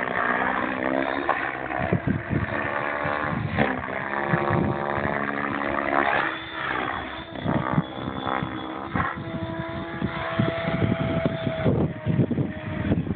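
Radio-controlled model helicopter flying, its motor and rotor whine sweeping up and down in pitch several times, then holding steady for a couple of seconds near the end.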